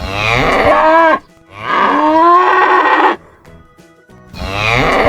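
Cow mooing: three long, loud moos in a row, separated by short pauses. Faint background music fills the gaps.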